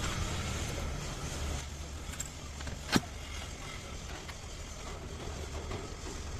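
Vehicle engine running steadily, with one sharp click about three seconds in.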